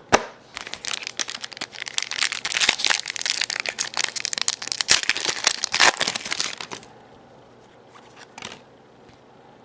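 Plastic wrapper of a hockey card pack crinkling and tearing as it is opened by hand, a sharp click at the start and several seconds of dense crinkling that stops about seven seconds in.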